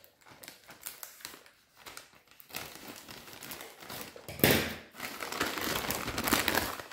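Packaging of a pair of in-ear headphones crinkling and crackling as it is handled and opened. There are scattered light clicks, then a sudden louder rustle about four and a half seconds in, followed by dense crinkling.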